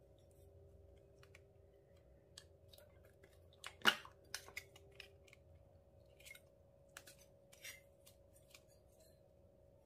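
Scattered soft clicks and crackles of hands handling slime, clay and a plastic makeup compact, the loudest a sharp plastic click about four seconds in as the Mickey Mouse-shaped compact is opened. A faint steady hum runs underneath.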